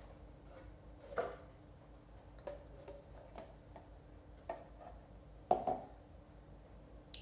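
A few light, scattered knocks and clinks of kitchen dishes being handled, as a blender jar is emptied into a bowl.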